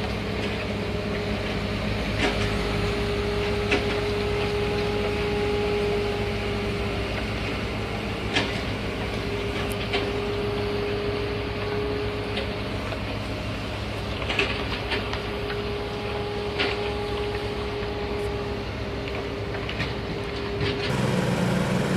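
Heavy road-construction machine running steadily, its engine humming under a constant whine, with a few short knocks or clanks scattered through. The sound changes abruptly about a second before the end.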